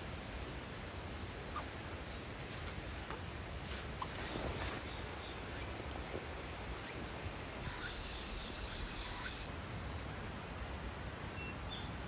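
Insects chirping in a steady, evenly spaced pulse over a faint outdoor hiss.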